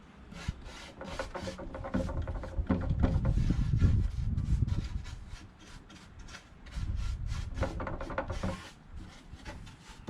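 Paintbrush stroked back and forth over a wooden board, brushing on water-based varnish: a quick run of scratchy rubbing strokes, louder in two stretches.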